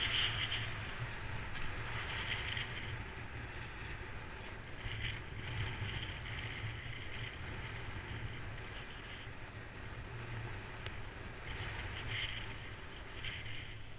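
Airflow rushing over the microphone of a paraglider's action camera during the descent: a steady wind rush with a low rumble, swelling slightly now and then.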